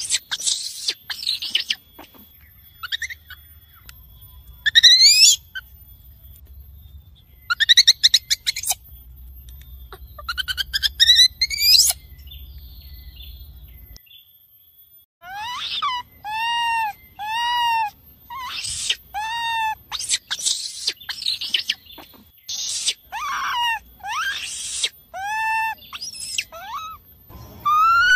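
Baby macaque calls for its mother: high, whistling arched coos and quick rising squeals. The calls pause for a few seconds about halfway through, then come back as a run of coos roughly once a second.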